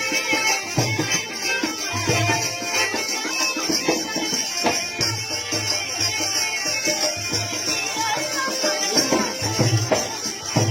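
Marwari folk music with a steady hand-drum beat.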